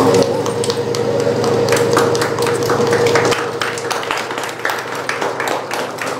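Scattered hand clapping from a small group, over a steady hum that cuts off about three seconds in.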